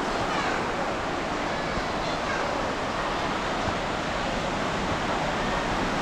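Steady wash of ocean surf breaking on the beach, with faint voices of people in the background.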